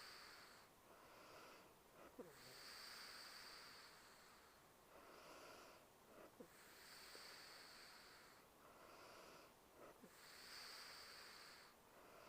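A sleeping woman's faint, slow breathing with light snoring: a long, hissy breath about every four seconds, three in all, each opening with a brief pitched catch in the throat or nose.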